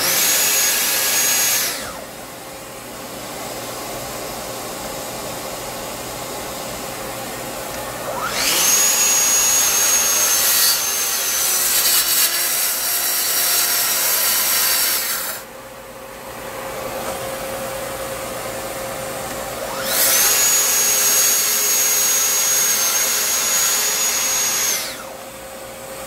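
Festool plunge-cut track saw running and cutting into a camphor wood slab in three runs: one ending within the first two seconds, then longer ones starting about eight and twenty seconds in, each with a steady high motor whine. Between the runs the attached dust extractor keeps running with a steady hum.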